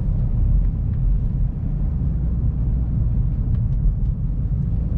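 Steady low rumble of tyre, road and drivetrain noise inside the cabin of a BMW X5 driving on snow-covered roads, with a few faint ticks.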